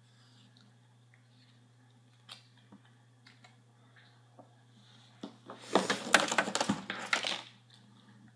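Plastic makeup tubes and packaging being handled: a few faint clicks, then about two seconds of loud rattling and rustling from around five and a half seconds in.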